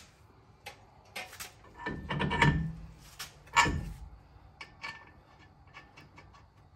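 Truck's front spindle and hub being fitted onto the ball joint studs: metal-on-metal handling knocks, with a short clatter about two seconds in, one sharp clunk about a second later, then a few light clicks.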